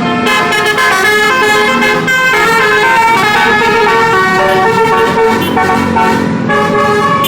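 Bus 'basuri' telolet horn, a set of multi-trumpet air horns, playing a melody: loud horn notes sounding in chords and stepping from pitch to pitch every fraction of a second.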